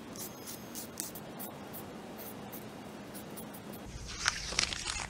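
Paper template being rubbed and peeled by hand on a plexiglass sheet: a run of short, scratchy rustles, louder and sharper near the end.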